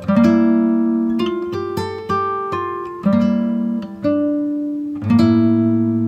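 Background music: an acoustic guitar playing plucked chords, a new chord struck about once a second and left to ring and fade.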